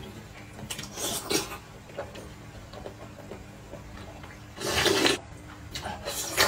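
A person slurping broth and noodles from a bowl: three slurps, the longest and loudest about five seconds in.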